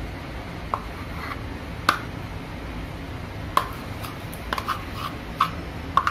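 Metal spoon clicking and knocking against a plastic tub and a steel mixing bowl while scooping softened butter: about eight light, irregular clicks.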